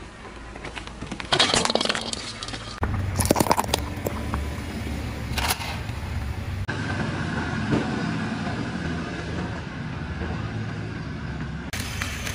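A car's tyre rolling slowly over small toys and objects, giving several crunches and cracks over a low engine and tyre rumble. The loudest crunching comes in clusters about one and a half and three seconds in, with a single sharp crack a little after five seconds, and the background changes abruptly three times.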